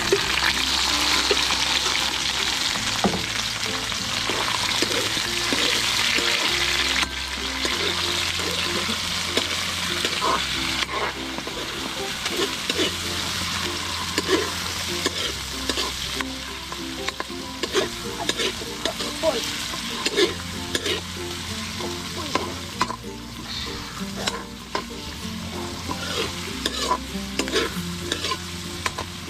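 Garlic, onion and balinggasa meat sizzling in hot oil in a pan while being stirred, with a steady frying hiss and repeated clicks and scrapes of the spatula against the pan.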